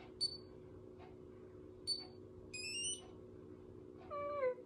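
Electronic beeps from a BaByliss hair styler working a curl: two short high beeps about a second and a half apart, then a quick rising run of tones. Near the end comes a brief falling whimper from the user, over a steady low hum.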